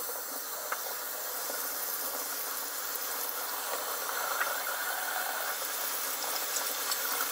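Bathroom faucet running steadily into a sink, a continuous hiss of water, with toothbrushes and then hands rinsed under the stream.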